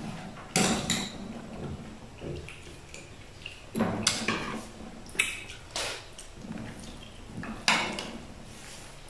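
Metal spoons and forks clinking and scraping against a dish, in scattered short strikes during eating.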